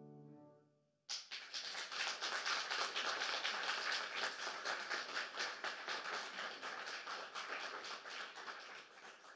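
The last chord of a song for soprano and piano dies away, and about a second in an audience breaks into applause, which thins out near the end.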